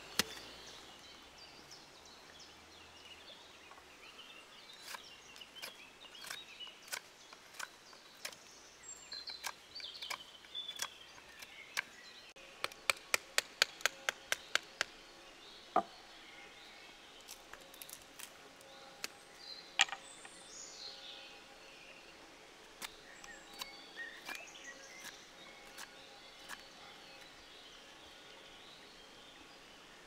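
Scattered sharp wooden knocks and clicks of a Swiss Army knife being worked into wood to split and shape thin boards, with a quick run of about ten knocks, around four a second, near the middle. Faint bird chirps in the background.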